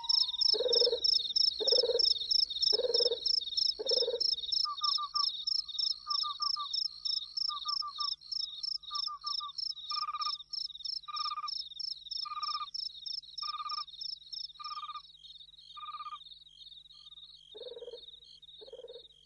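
Night chorus of crickets trilling steadily, with frogs calling about once a second, taking turns in different voices; the whole chorus fades out toward the end.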